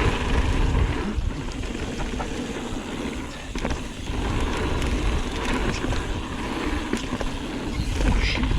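Mountain bike rolling down a dirt trail: a steady low rumble of wind on the microphone and tyres on the ground, with scattered clicks and rattles from the bike going over bumps.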